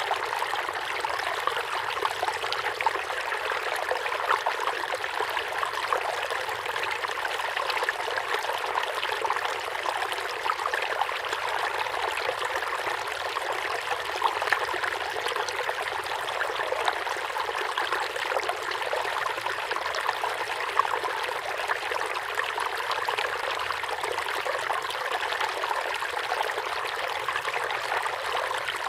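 River water flowing through a forest: a steady rush and trickle, with small splashes flecking through it.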